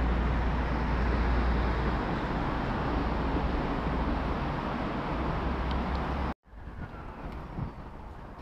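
Steady outdoor background noise: a low rumble with an even hiss over it. It cuts off abruptly about six seconds in, and a quieter outdoor ambience follows.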